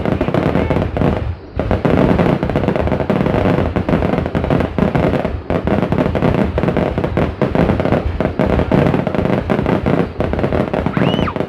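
Fireworks going off in a dense, continuous barrage of bangs and crackles, with a brief lull about a second and a half in.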